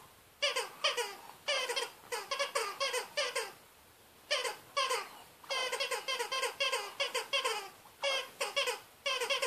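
Rubber spider dog toy squeaking as a French bulldog chews it: short squeaks that drop in pitch, about three a second, in runs broken by pauses of about a second.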